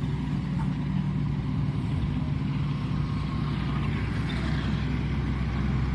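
Shantui ME210LC-1 excavator's diesel engine running steadily.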